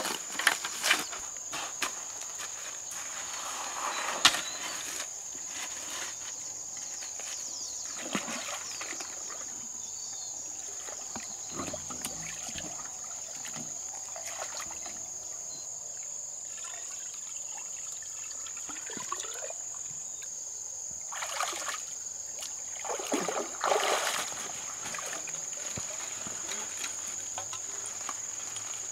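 Water splashing and trickling in short bursts, with a sharp knock about four seconds in and a busier spell of splashing around 21 to 24 seconds in. A steady high-pitched insect drone runs underneath throughout.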